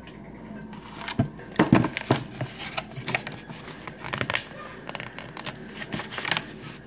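Irregular rustling and crinkling handling noises with sharp clicks, starting about a second in and loudest soon after.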